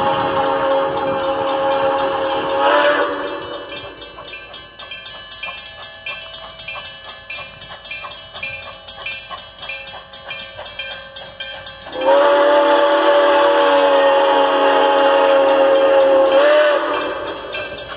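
Steam locomotive whistle blowing two long blasts: the first ends about three seconds in, the second sounds for nearly five seconds from about twelve seconds in and bends up in pitch as it cuts off. Between the blasts the locomotive's running sound is heard more quietly.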